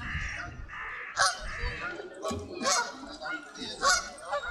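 Geese honking: a run of short, loud honks about a second apart, some coming close together.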